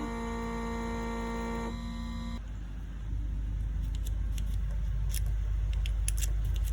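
Intro music with steady held tones ends about two seconds in. A steady low rumble follows, growing a little louder a second later, with scattered light clicks.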